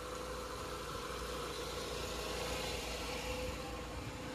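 Nissan GA13 carbureted 1.3-litre four-cylinder engine idling steadily while warming up, with a smooth idle.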